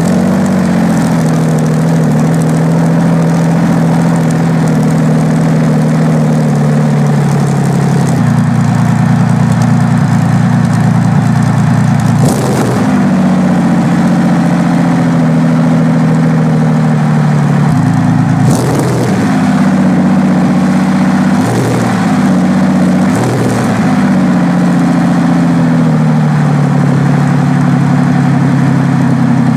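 Rolls-Royce Meteor 27-litre V12 petrol engine running loudly on open stub exhausts. Its speed changes briefly several times in the second half, some of these changes with short sharp cracks from the exhaust.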